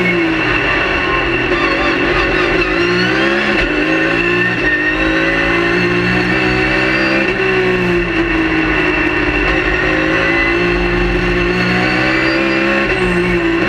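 Race car engine heard from inside the cockpit, pulling hard with its pitch climbing and dropping back at each gear change, easing and falling in pitch about halfway through, then climbing again.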